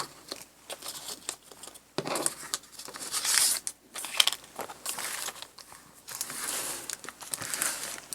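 Paper and wrapping from a stationery kit crinkling and rustling in irregular bursts as items are unwrapped and handled, with a few light taps.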